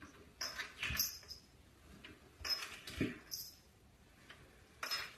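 A cat sliding down wooden stairs a step at a time: a rustling scuff and a soft thump as it drops onto each step, three times.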